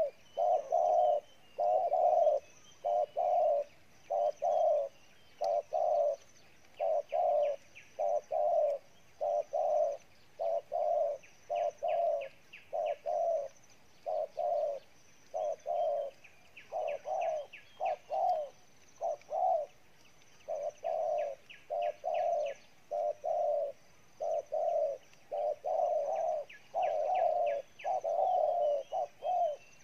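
Spotted dove giving its bow-coo ('gù'): a low coo repeated without a break, about one every three-quarters of a second. Faint high, trilled chirps of small birds come in now and then.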